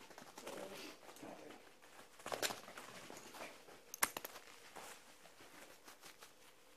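Quiet footsteps and scuffs on a bare floor, with a brief rustle about two and a half seconds in and a sharp tap about four seconds in.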